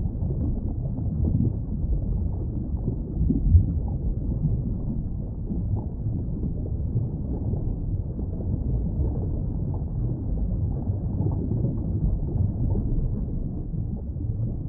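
Low, steady rumbling noise with no clear call in it, with one short louder bump about three and a half seconds in.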